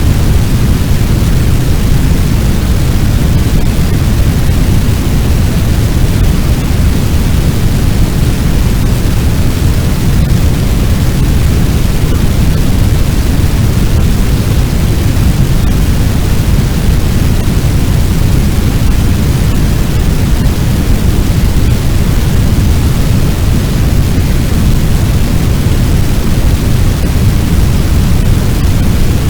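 Fire sound effect imitating a large blaze: a loud, steady, deep rush of noise with no crackles or pops.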